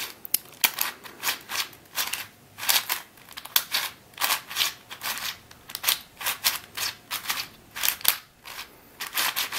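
Cube4You 3x3x7 cuboid twisty puzzle being scrambled: its plastic layers turned quickly by hand, a rapid, irregular run of sharp clicks and clacks.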